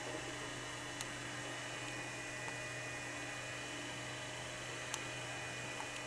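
Steady low electrical hum with a few faint ticks, about a second in and near the end.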